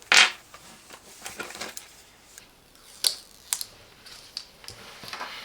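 Handling noise from a multimeter and its accessories being handled: a short rustle near the start, light scrapes and taps, then two sharp plastic clicks about three seconds in.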